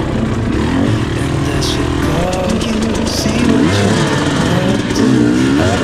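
Enduro dirt bike engine running on a trail ride, its pitch rising and falling as the throttle is opened and closed.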